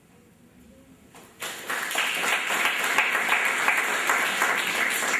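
An audience applauding: a quiet moment, then many hands start clapping about a second and a half in and keep up a dense, steady applause.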